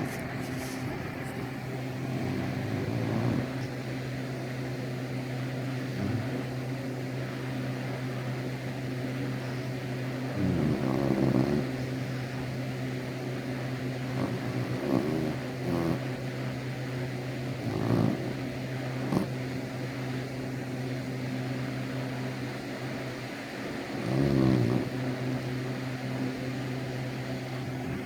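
A sleeping pet snoring, with several short, louder snorts at uneven intervals, over a steady low hum.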